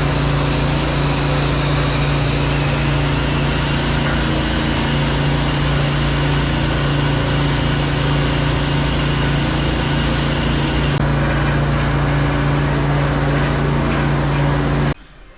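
A high-pressure drain-jetting machine running steadily with an even, engine-like hum, then shut off abruptly near the end.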